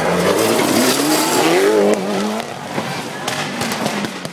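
Rally car engine revving hard and wavering in pitch as the car slides through a gravel corner. In the last second, sharp knocks and clatter as the car tips over onto its side.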